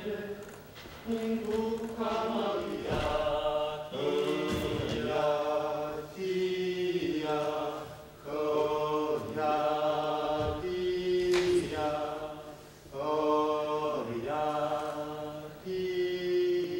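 Music of chanting voices in a choir-like texture, sung in repeated phrases of about two seconds with short breaks between them, over a steady low drone. A single sharp strike cuts through about two-thirds of the way in.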